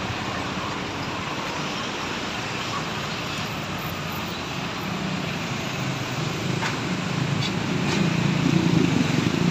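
Steady street traffic noise with a vehicle engine running, the engine hum growing louder from about halfway through.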